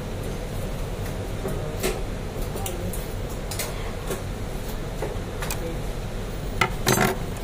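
Faint, scattered small metal clicks and taps from a screwdriver working on the rotary hook (shuttle) of a zigzag sewing machine while its hook timing is being set, with a small cluster of clicks near the end, over a steady low hum.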